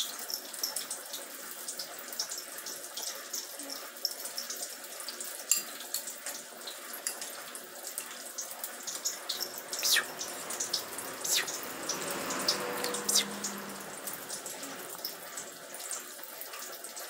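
Soft, irregular wet clicks and smacks of a baby eating puree off a spoon, over a faint steady hiss.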